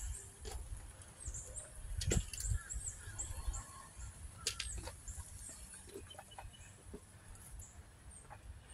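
Faint outdoor ambience: small birds chirping again and again, with a few footsteps and knocks from handling the phone as it is carried around the truck, the loudest about two seconds in.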